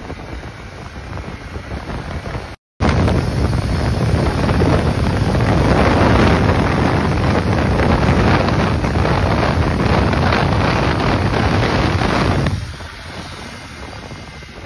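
Wind rushing over the microphone of a phone filming from a motorcycle at highway speed, with road and engine noise under it. The sound cuts out for a moment about three seconds in, comes back much louder, and drops back to the lower level near the end.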